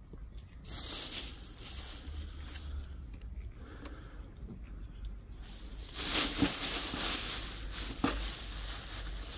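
Plastic bag lining a metal bucket crinkling and rustling in bursts as a hand rummages in it, loudest about six seconds in, with a couple of soft knocks.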